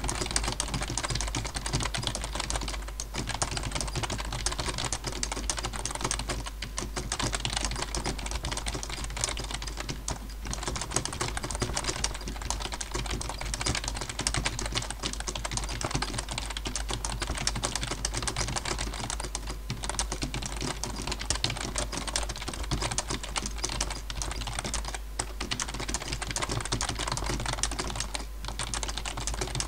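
Rapid, continuous typing on a computer keyboard, a dense stream of keystrokes at speed-test pace of around 130 words per minute. The typing breaks off for a moment only a few times.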